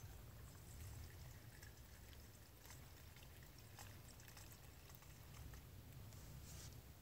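Faint trickle of liquid fuel poured from a fuel bottle into a small brass stove burner, with a few light ticks, over a low steady rumble.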